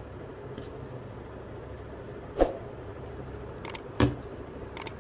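Knives being handled and set down on a surface: one sharp knock about halfway, then light double clicks and a second knock near the end, over a steady low hum.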